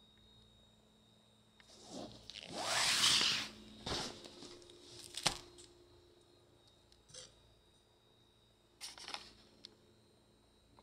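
Handling noise: rustling and rubbing, loudest as one long scraping rustle about three seconds in, with a sharp click a little after five seconds and softer rustles near seven and nine seconds.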